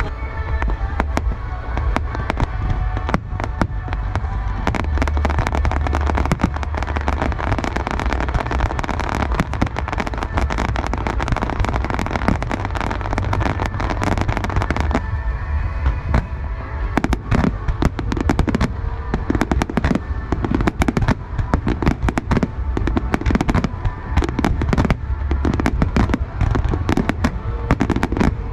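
Dense fireworks barrage: rapid crackling bursts over a continuous low booming rumble, with a short lull about halfway through. Music plays underneath.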